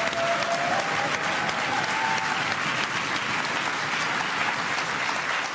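Studio audience applauding steadily, with the people at the table clapping along.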